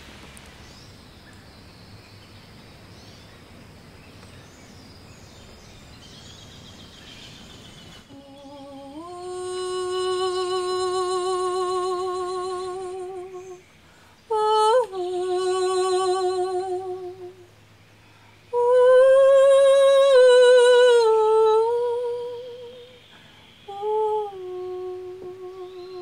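A woman's voice humming a slow wordless melody in four long phrases of held, wavering notes, after about eight seconds of faint background.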